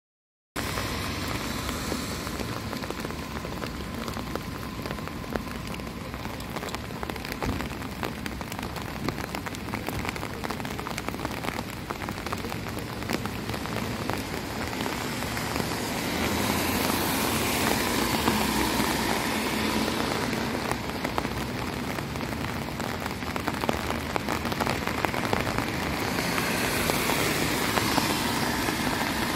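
Steady rain falling on a wet city street, with a dense patter of close raindrop taps. Traffic hisses on the wet asphalt, rising in louder rushing spells about halfway through and again near the end.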